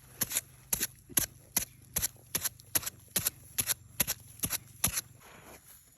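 A series of sharp clicks or snaps at an even pace, about two and a half a second, about a dozen in all, stopping shortly before the end.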